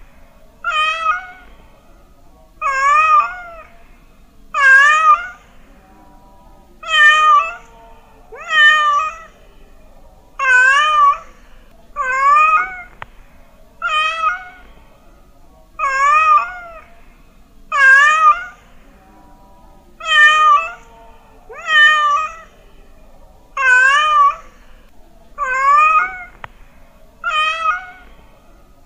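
A domestic cat meowing over and over, about fifteen meows at a steady pace, one every one and a half to two seconds, each rising and then falling in pitch.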